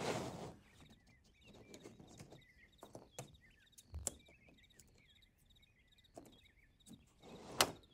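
Watercolour half pans being picked out of a metal paint tin and set down on a table, making a scatter of light clicks and knocks, the loudest near the end.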